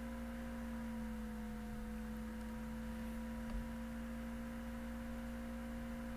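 Steady low background hum with a constant pitch and fainter higher overtones, over a light hiss; a single faint click a little past halfway.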